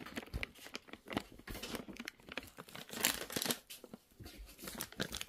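Plastic cat-treat packet crinkling and being torn at by hand, in irregular sharp crackles.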